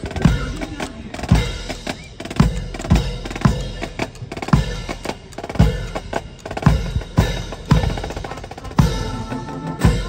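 Marine Corps marching band's drums playing a marching cadence as the band marches past: a bass drum beat about twice a second, with snare drums rattling between the beats.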